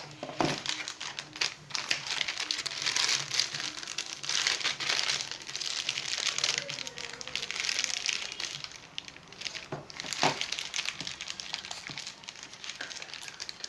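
Crinkling of the clear plastic anti-static bag around a motherboard as hands handle and pull at it, coming in uneven swells with small clicks, and one sharper knock about ten seconds in.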